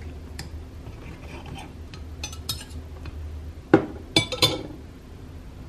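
Metal knife and fork clinking and scraping on a plate while cutting a slice from a small pizza: a few light clinks, then three louder ones close together about four seconds in.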